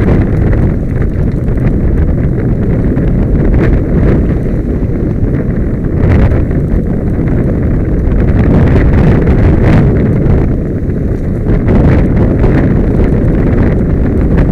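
Mountain bike rolling fast down a dirt forest trail, heard from a helmet camera: wind buffeting the microphone over a constant rumble of tyres on dirt. Short knocks and clatters from the bike hitting bumps come through every few seconds.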